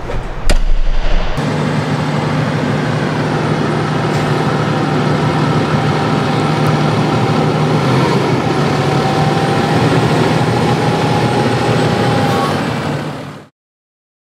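Two sharp knocks, then a fire department ladder truck's diesel engine running loudly and steadily with a low hum as the truck pulls out of the station; the sound stops abruptly near the end.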